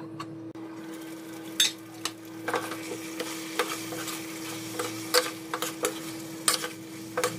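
A steel spoon stirring and scraping chicken pepper curry in a stainless-steel pan, with irregular clinks against the metal over a faint sizzle. A steady hum runs underneath.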